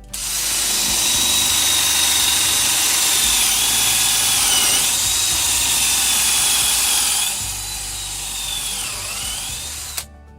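Hamilton Ultimate cordless drill running under load, its high motor whine dipping in pitch twice as the bit bites. It is quieter for the last few seconds and cuts off suddenly near the end.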